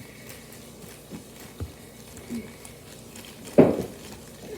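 A cardboard shipping package being handled and cut open with scissors: a few scattered soft knocks and rustles, then one louder thump about three and a half seconds in.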